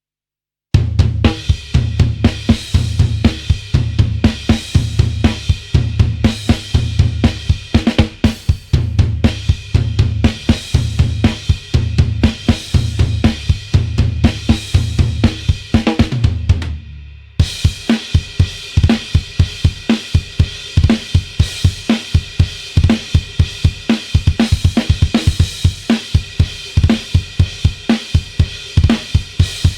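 Sampled drum kit from the EZdrummer 3 'Into the Dark' EZX library playing a dark rock groove of kick, snare, hi-hat and cymbals, with a heavy low part under it. About 17 seconds in it drops out briefly, then comes back with a faster, busier pattern of hits.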